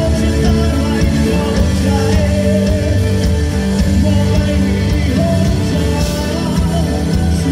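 Rock band playing with singing over it, loud and unbroken.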